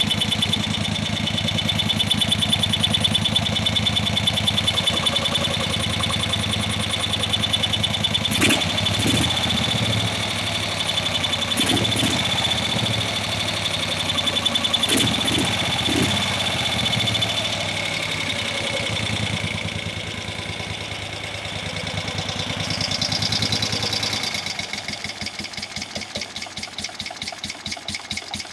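Moto Guzzi Ambassador V-twin engine running at idle while its carburettor screws are being adjusted during a tune-up. A few sharp clicks sound in the middle. The idle drops and turns quieter and more distinctly pulsing near the end.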